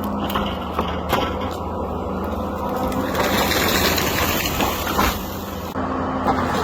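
Ponsse forestry harvester running steadily under its diesel engine, with mechanical noise from the machine working and a few sharp knocks.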